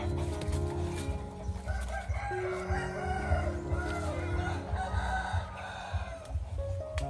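Soft background music of steady held notes. A rooster crows and chickens cluck over it, from about two seconds in until near the end.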